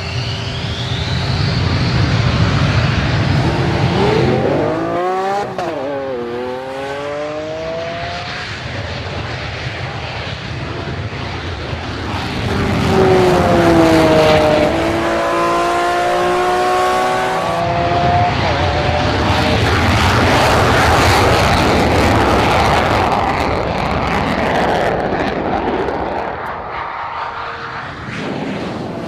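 A high-revving vehicle engine accelerating hard, its pitch climbing and dropping back with each quick gear change. About halfway through, another engine run comes in with a falling pitch.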